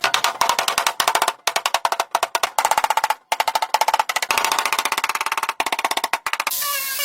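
Rapid, even tapping strikes, about a dozen a second, broken by short pauses. About six and a half seconds in they give way to a power tool running with a steady whine.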